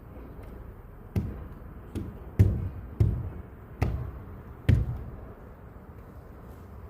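Six dull thumps at uneven intervals over about three and a half seconds, the loudest near the middle.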